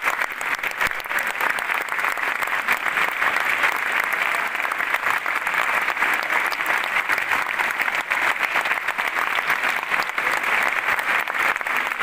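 A large audience applauding: many hands clapping at once in a dense, steady ovation.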